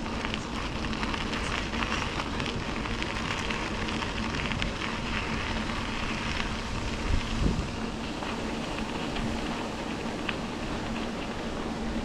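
Bicycle tyres rolling steadily along the trail surface with small scattered crackles and rattles, and a brief low thump about seven seconds in.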